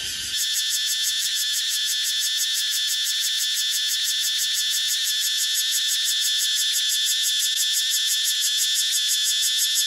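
Night chorus of cicadas: a steady, dense, high-pitched shrill with a fast, even pulsing texture.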